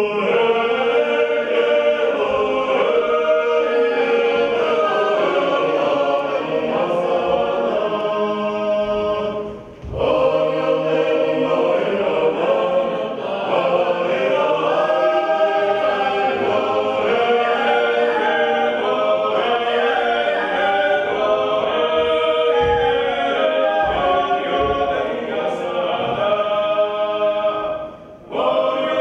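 Unaccompanied choir singing in several voices: a slow, held, chant-like Georgian folk song. It breaks off briefly about ten seconds in and again near the end, between phrases.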